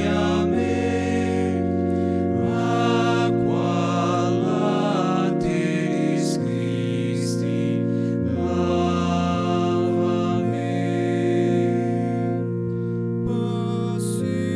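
Slow sacred music on a keyboard, with held organ-like chords changing every second or two.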